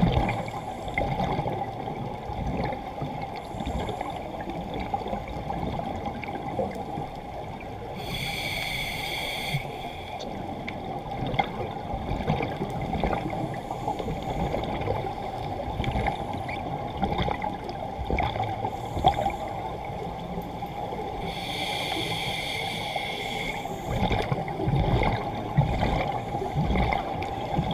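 Underwater ambience picked up by a diver's camera: a steady low hum with scattered small clicks, broken twice by a burst of exhaled bubbles from a scuba regulator, about 8 seconds in and again about 21 seconds in, each lasting a second or two.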